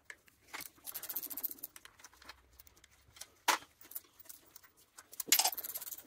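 Ratchet spanner clicking in quick runs as it works the distributor's retaining bolts loose, with a few single sharp metallic clicks between; the runs come about a second in and again near the end.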